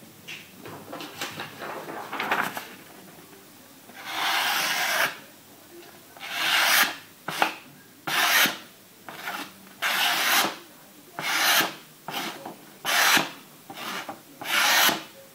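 Paper being sliced with a Mercator K55K pocket knife in a paper-cut sharpness test: a series of dry, rasping cuts. After lighter rustling at the start, about seven loud strokes come from about four seconds in, each under a second long and one to two seconds apart.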